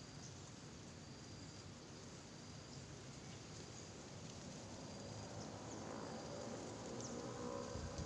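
Outdoor ambience of insects: a faint steady hiss with a short high chirp repeating about once a second. A low rumble builds near the end.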